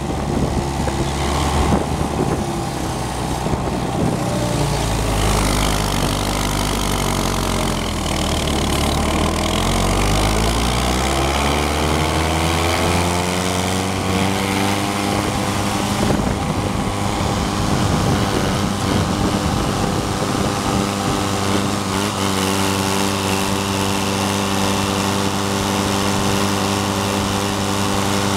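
Rasant Kombitrak two-axle mountain mower's engine running as the machine drives. Its pitch climbs over a few seconds about halfway through, then holds steady.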